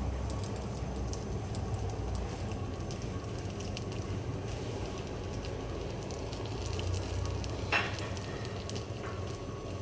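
Steady hiss and low rumble of a gas stove burner on low flame under a flat iron tawa, with faint sizzling from oil-brushed pita breads warming on it. A brief sharper noise comes near the end.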